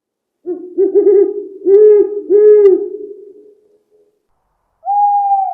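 Owl hooting: a quick run of four or five low hoots, then near the end a single higher, longer hoot.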